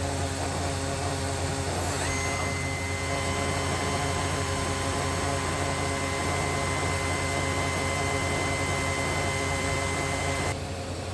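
Powered-up Makino a61 CNC horizontal machining center running with a steady low hum, joined about two seconds in by a high, steady whine that cuts off shortly before the end.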